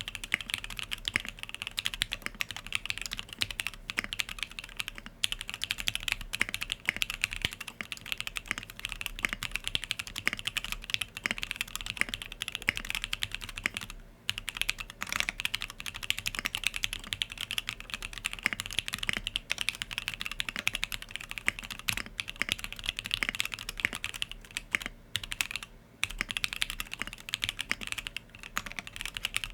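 Fast continuous typing on a custom 65% mechanical keyboard, the Monstargear Sangeo65: lubed SP-Star Yanyu linear switches in an aluminium plate with plate foam, with Infinikey keycaps. The keystrokes come as a dense stream of clicks and clacks, with brief pauses about a third of the way in and again near the end.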